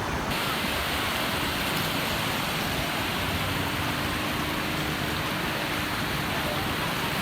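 Steady rushing wash of sea surf mixed with wind, with no breaks.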